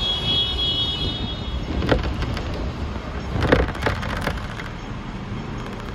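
Hong Kong double-decker electric tram running, a steady low rumble with a high-pitched squeal for the first second and a half, then a few sharp clatters and knocks.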